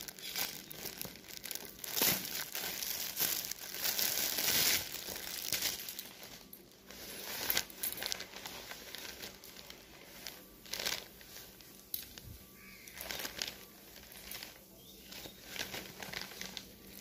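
Clear plastic saree packaging crinkling as it is handled, in irregular bursts that are loudest in the first few seconds and then thin out to softer, scattered rustles.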